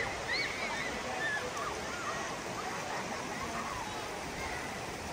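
Shallow river running over stones, a steady rush of water, with distant voices of people and children calling out over it.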